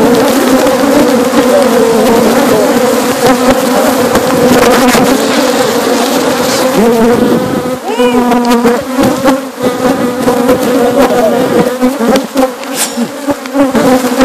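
A dense swarm of honeybees buzzing loudly and steadily around the opened nest. Single bees passing close by add rising and falling whines, most clearly about halfway through.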